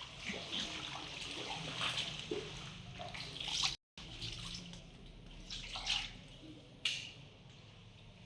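Floodwater splashing and running in irregular bursts. The sound drops out completely for a moment just before the middle.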